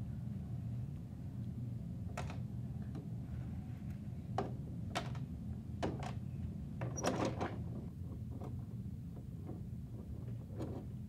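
Scattered light clicks and soft rustles as crumpled tissue paper is handled and dropped into the plastic rear hopper of a toy garbage truck, with a short burst of rustling about seven seconds in. A steady low hum runs underneath.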